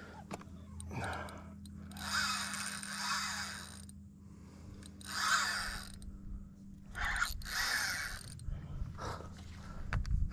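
Spinning reel being cranked in short spells of a second or two during a lure retrieve, over the steady low hum of an electric trolling motor.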